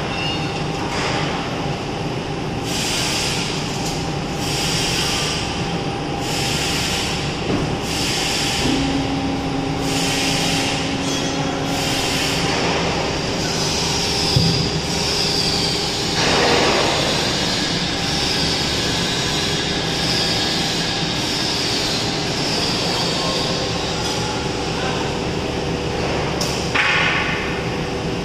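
A running PUR honeycomb-door laminating line: a steady mechanical hum. Short hissing sounds come about once a second for the first several seconds, with a louder hiss about halfway through and another near the end.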